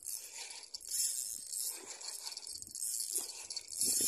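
Shrill, steady chorus of insects in mangrove trees, with a few soft low thumps.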